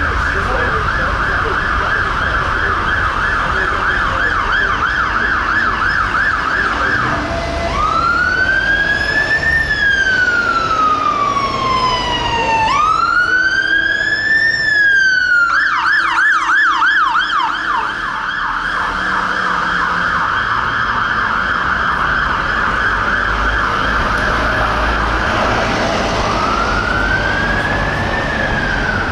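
London Fire Brigade Mercedes-Benz Atego fire engine's siren, switching between a fast yelp and a slow wail. It yelps for about the first seven seconds, gives two long rising-and-falling wails, yelps again, and starts another wail near the end.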